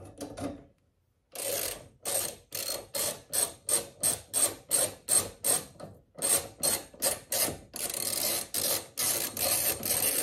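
Hand ratchet wrench clicking in quick, even strokes, about three a second, as it drives a headlight mounting bolt. The clicking pauses briefly about six seconds in, then resumes with a faster run.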